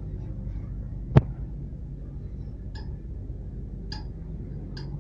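Wrench on a wheel's lug nut: one sharp metallic click about a second in, then three lighter clinks spread through the rest. The click is the noise each nut is meant to make when it has been tightened.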